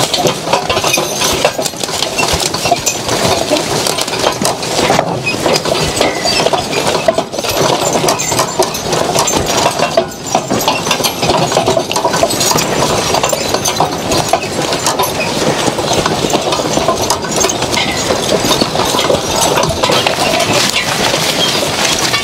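Horse-drawn riding sulky plow at work: a steady metallic rattle and clanking of the steel plow and harness hardware as the team pulls it through the field, full of small clinks.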